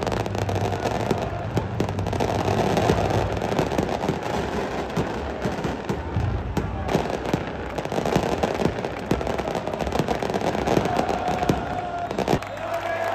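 Firecrackers going off among a football crowd in a stadium stand: a dense, uneven crackle of sharp bangs over the noise of the crowd.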